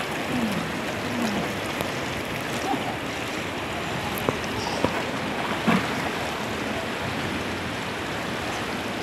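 Indoor swimming pool noise: a steady wash of splashing, lapping water echoing in the pool hall, with a few short, sharp splashes around the middle.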